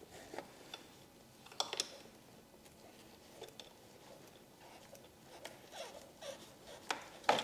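Quiet scattered clicks and light metallic taps from a bolt being started by hand through ring terminals into a lithium battery's side terminal, with a close pair about a second and a half in and sharper clicks near the end.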